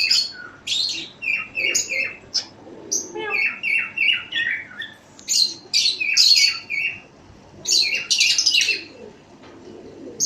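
Many cage birds chirping and squawking together: short sharp calls in quick runs of three or four, with bursts of higher chatter over them.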